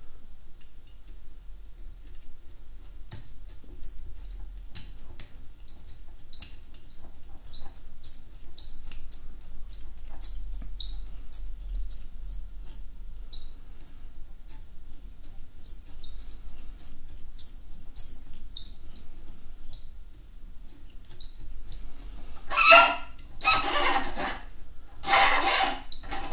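Short high squeaks, about two a second, from thread being wrapped on a fly-tying vise. Near the end come four loud rasping rubs in a row.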